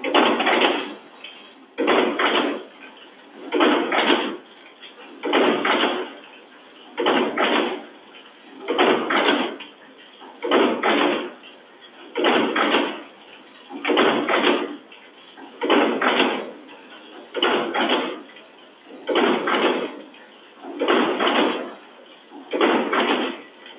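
Automatic packaging machine running in regular strokes: a burst of mechanical noise under a second long repeating about every 1.7 s, some 35 strokes a minute.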